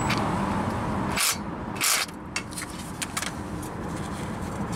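A socket ratchet gives two short clicking strokes, about a second and two seconds in, as it tightens the bolt of a new ABS wheel speed sensor. A few faint ticks follow over a steady low background rumble.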